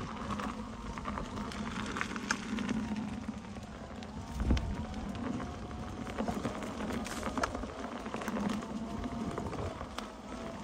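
Electric unicycle riding along a trail: a thin motor whine that rises and falls with speed over steady rolling tyre noise, with scattered sharp ticks.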